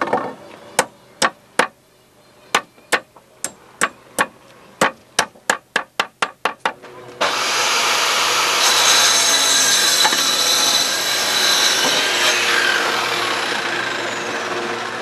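Hammer striking a wooden board, about twenty sharp knocks that come faster toward the end. About seven seconds in, they give way abruptly to a loud, steady noise.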